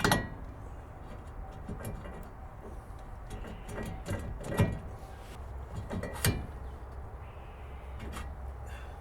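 A new brake rotor being fetched and handled: a few sharp knocks and clatters, loudest at the start, at about four and a half seconds and at about six seconds, over a steady low hum.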